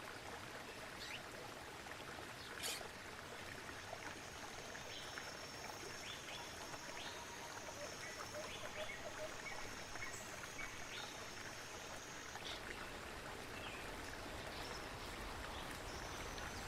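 Jungle ambience: running water with scattered short bird chirps. A steady high-pitched buzz sits over it from about four seconds in until about twelve seconds in.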